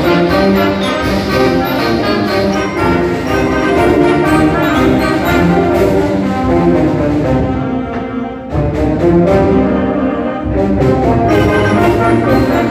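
High school concert band playing, with brass, woodwinds and percussion hits. The music drops briefly just after eight seconds in, then the full band comes back in strongly.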